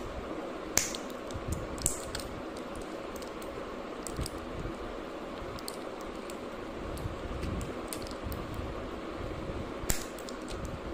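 A few sharp plastic clicks from a MacBook Pro spacebar being pried up at its clips with the edge of a pill blister sheet: one about a second in, a fainter one a second later, and a louder one near the end.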